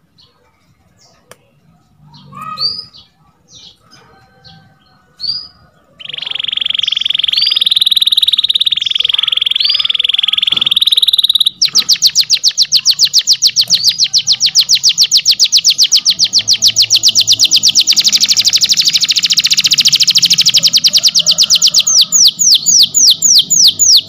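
Domestic canary singing. A few short rising chirps open it. From about six seconds it goes into a continuous fast trill, changes about halfway to a rapid rolling run of repeated notes, and slows near the end into separate rising notes.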